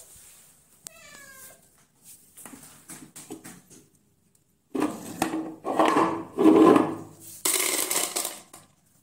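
Domestic cats meowing. There is a short meow that rises and falls about a second in, then louder, longer meows in the second half, followed by a brief rustling hiss near the end.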